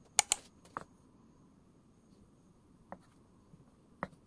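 Kitchen knife cutting fish cake sheets on a wooden cutting board: short sharp knocks of the blade against the board, two loud ones close together near the start, then single fainter ones about three and four seconds in.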